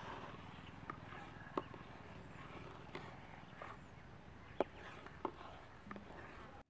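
A ladle stirring colostrum in an aluminium pot over a small wood fire: a handful of irregular sharp clicks and taps over a low steady background.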